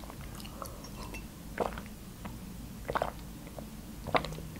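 A person drinking from a glass, with three short swallowing gulps about a second and a quarter apart over a faint steady hum.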